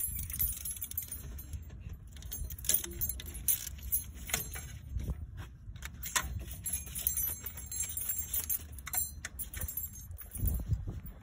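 Hand tools clinking against metal with irregular sharp clicks, a ratchet wrench and socket working bolts in a car's engine bay, over a low steady rumble.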